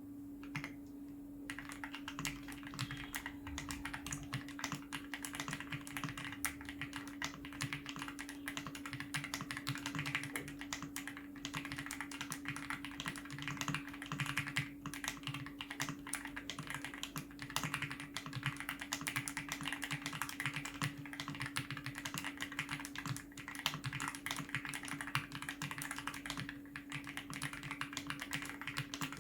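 Typing sound test on an RK R65 65% gasket-mounted mechanical keyboard with RK Chartreuse switches and XDA-profile double-shot PBT keycaps: fast, continuous keystrokes, starting about a second and a half in.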